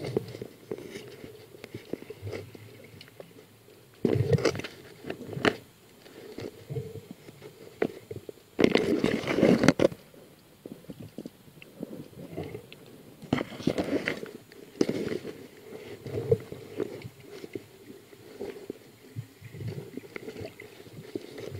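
Muffled underwater sound picked up through a camera's waterproof housing: irregular knocks and rumbles as the camera is moved about under water, with a longer, louder rush of noise about nine seconds in.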